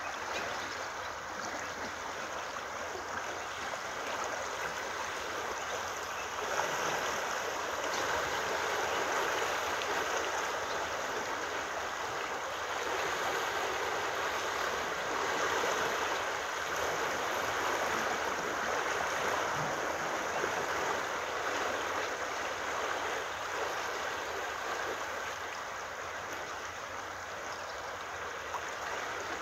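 Floodwater near peak flow rushing steadily over and past a submerged low-level bridge. The rush grows louder about six seconds in and eases a little near the end.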